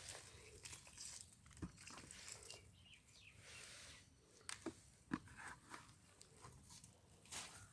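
Near silence with faint, scattered clicks and rustles, a few sharper ticks about halfway through.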